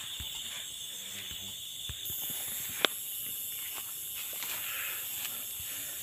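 Crickets chirping steadily in a high-pitched chorus, with one sharp click about three seconds in and a few softer ticks.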